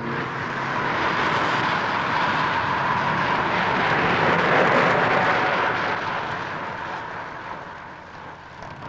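Rushing pass-by noise of a pack of racing bicycles sweeping past on a paved road. It swells about halfway through, then fades away near the end.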